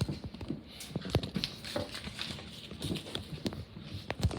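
A run of light, irregular knocks and taps, a few each second.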